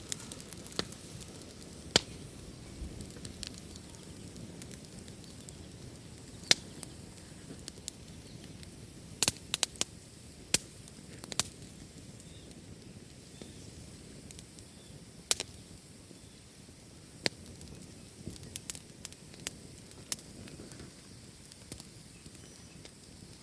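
Fireplace fire burning with a soft, steady hiss and light, sparse crackling: single sharp pops of burning wood every few seconds, with short bursts of several pops about a third of the way in and again near the end.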